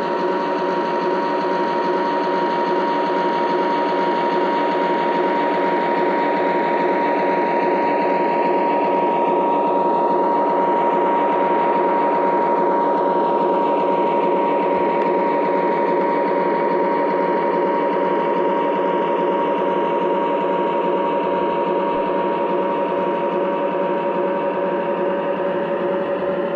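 3rd Rail O-scale Krauss-Maffei ML-4000 model locomotive running on three-rail track: a steady mechanical whir with two held tones that keep the same pitch. The tone colour sweeps and shifts about halfway through, as if the train is moving past.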